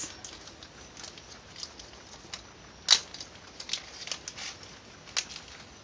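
Scattered light clicks and rustles of small thermoplastic pellets and their plastic packaging being handled on a table, with a sharper click about three seconds in and another near the end.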